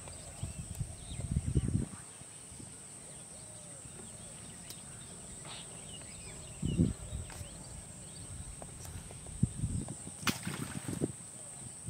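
Countryside pond-side ambience: a steady high insect drone with faint bird chirps, broken by a few low rumbling bursts, the loudest near the middle and again near the end, and one sharp click about ten seconds in.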